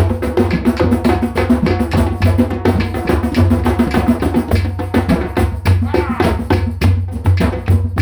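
Percussion-driven music: fast, dense drum and wood-block hits over a steady bass line and sustained pitched tones.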